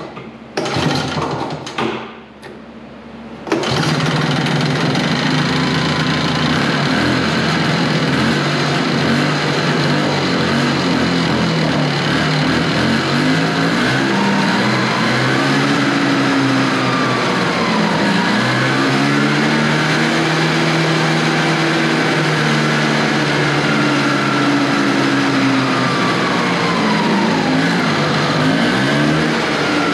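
1970 Evinrude Skeeter snowmobile's two-stroke engine being turned over, catching about three and a half seconds in and then running loudly with the track spinning on its stand. Its speed rises and falls in waves, surging up and down where it should hold steady, which the owner puts down to a fuel mixture jet that needs adjusting.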